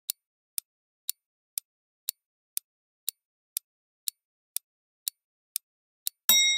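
Countdown timer sound effect ticking evenly, about two ticks a second, ending in a bright bell ding near the end.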